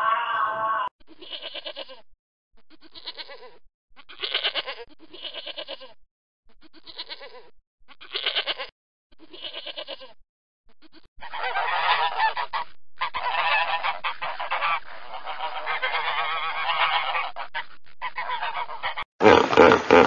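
Domestic goat bleating: a string of short, wavering bleats about once a second, then a longer stretch of overlapping bleats from about eleven seconds in. A louder, different animal call fades out in the first second, and another loud sound begins just before the end.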